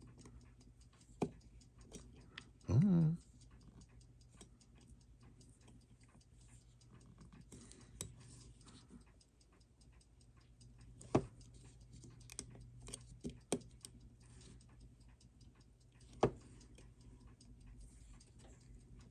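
Small metal watchmaker's tools clicking and tapping against a watch case and its parts, in irregular light clicks with a few sharper ones. A brief voiced hum comes about three seconds in, over a steady low hum.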